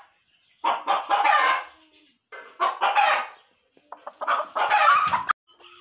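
Chicken giving three loud, harsh calls of about a second each, with short silences between them.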